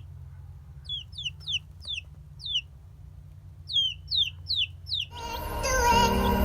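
Baby chicks peeping: about a dozen short, high peeps, each sliding downward, in two runs over a low steady hum. Music comes in about five seconds in.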